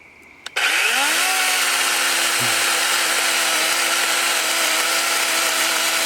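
DeWalt lithium-ion battery electric chainsaw with a 12-inch bar, triggered about half a second in: the motor whines up to speed and then runs at a steady pitch with the chain buzzing.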